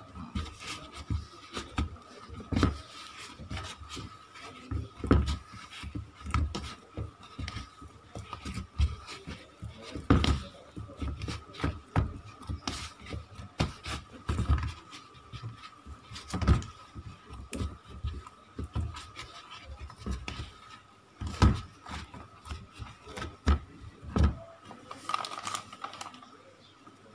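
Hands kneading tapioca-starch dough in a plastic bowl, being worked until smooth and no longer sticky. Irregular thumps and knocks of dough and hands against the bowl, with rubbing and scraping in between.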